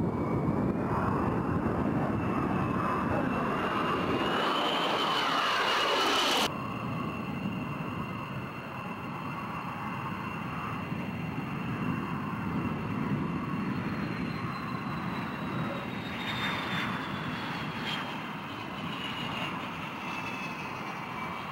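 Jet noise from an F-22 Raptor's twin Pratt & Whitney F119 turbofans, with a high whine rising in pitch and loudness over the first six seconds before cutting off abruptly. A quieter jet noise follows, its whine slowly falling in pitch.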